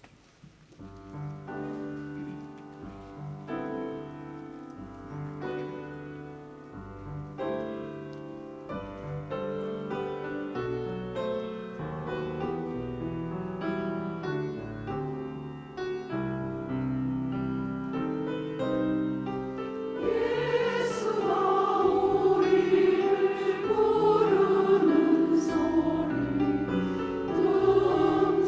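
A hymn's piano introduction played in slow chords, then a mixed church choir comes in singing about 20 seconds in, louder than the introduction.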